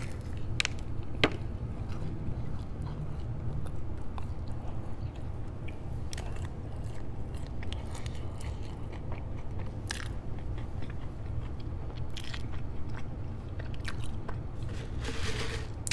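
Close-miked chewing of a breaded fried chicken finger, with wet mouth clicks and smacks scattered through it, over a steady low hum.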